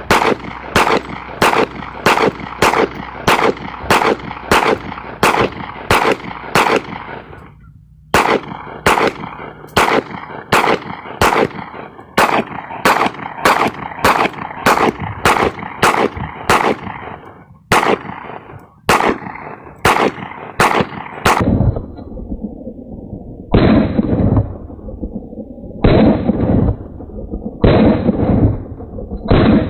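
Glock 23 pistol in .40 S&W firing steady, evenly spaced single shots, about two a second, from a 50-round drum magazine, with two brief pauses. Near the end the shots come slower, a couple of seconds apart, and sound more muffled.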